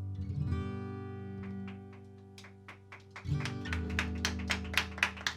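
Acoustic guitar closing out a folk song: a strummed chord rings and fades and a few notes are picked. A fresh chord comes in past the halfway point, followed by a quick run of sharp clicks or taps, about four or five a second.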